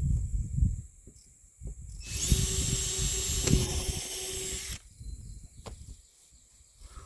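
Electric drill running for nearly three seconds, boring a hole through a plastic dash shell, then stopping suddenly. Low knocks and bumps from handling the work come before it.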